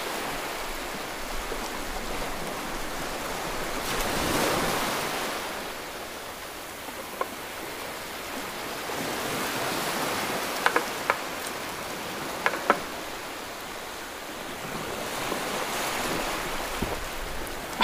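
Steady rushing background noise that swells and fades several times, with a few sharp clicks near the middle.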